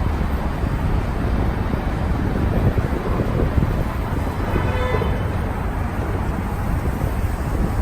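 Wind buffeting the microphone outdoors, a steady low rumble. A brief faint pitched tone comes in about four and a half seconds in.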